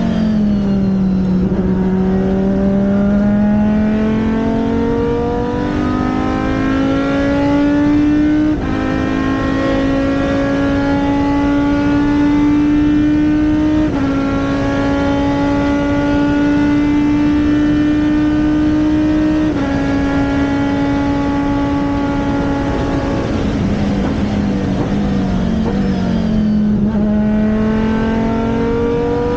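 Race car engine running hard on track, its note climbing under acceleration and holding high with a few abrupt jumps in pitch, then dropping as it slows about three quarters of the way through before climbing again near the end.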